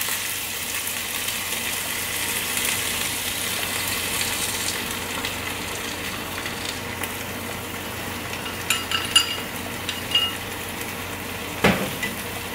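Beaten egg sizzling in a hot pan of stir-fried pork and onion, a steady frying hiss. About nine seconds in come a few light ringing clinks of chopsticks against the bowl, and a sharper knock near the end.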